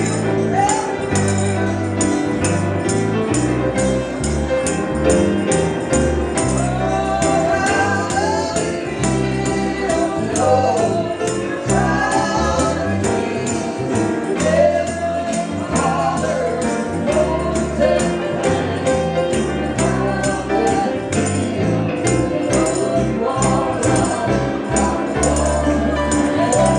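Gospel song: voices singing a melody over steady bass notes, with a tambourine shaken on a steady beat.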